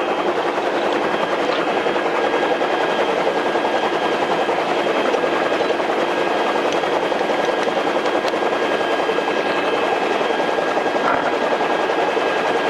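Rescue helicopter's turbine engine and rotors running steadily, a dense rushing noise with a thin high whine over it.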